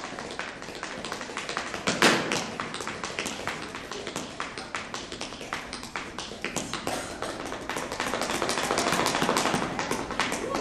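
A rapid, uneven run of sharp taps and clicks that grows denser and louder toward the end, with a stronger knock about two seconds in.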